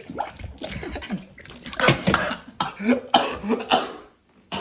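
A person coughing and spluttering wetly in a run of harsh coughs, coughing up water they have choked on.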